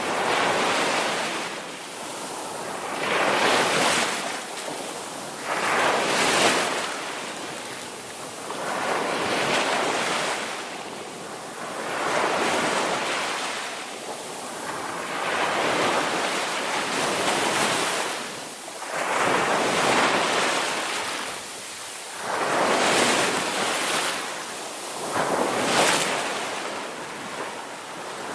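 Ocean waves breaking and washing on a shore. The surf swells and falls back in a steady rhythm of about one wave every two to three seconds.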